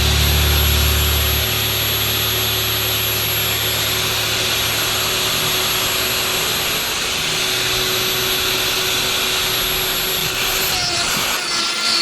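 A power tool running with a steady whirring noise. It drops away just before the end.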